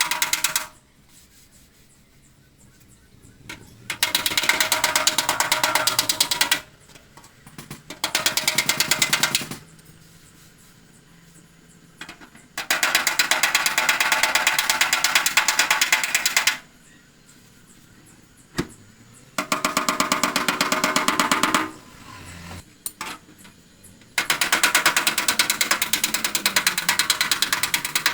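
Rapid hammer blows on the sheet-metal hood of a VW Beetle, knocking out a dent. The blows come in about six bursts of a few seconds each, with short pauses between them.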